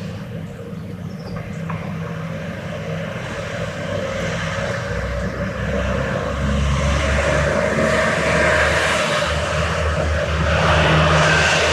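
Aircraft engine drone with a rushing hiss, growing steadily louder as the plane approaches overhead, loudest near the end.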